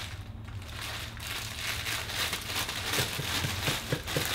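A thin plastic packaging bag crinkling and rustling as it is handled and pulled open.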